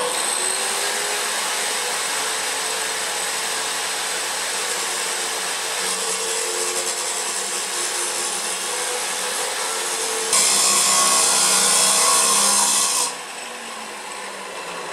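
Large angle grinder cutting through a rusty steel pipe with a 6 mm wall while the pipe is turned against the disc, a steady grinding of disc on steel. About ten seconds in it grows louder and harsher for a few seconds, then drops to a quieter level as the disc stops cutting.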